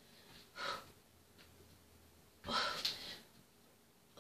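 A woman's effortful breathing during plank crunches: a short breath under a second in, then a longer, louder exhale about two and a half seconds in.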